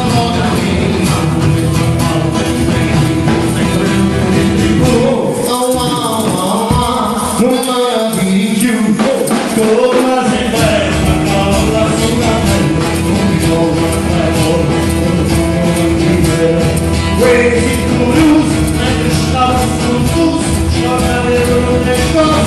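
Live band music with a man singing, guitar, bass and drums. About five seconds in, the bass and drums drop out, leaving the voice and higher instruments, and the full band comes back in after about five more seconds.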